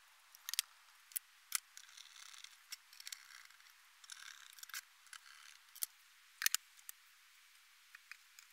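Faint, scattered clicks, taps and light rustling of a graphics card's plastic fan shroud and metal heatsink being handled and fitted together, with a louder pair of clicks about six and a half seconds in.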